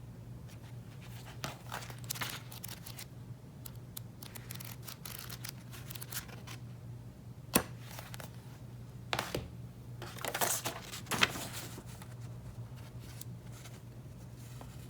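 Cardboard box and paper packaging being handled: scattered rustling and light clicks, with one sharp click about halfway through and a longer burst of rustling a little later, over a steady low hum.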